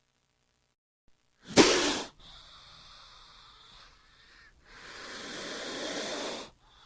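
Cobra hissing: a short, sharp hiss about a second and a half in, then a faint hiss, then a longer hiss that swells and cuts off near the end.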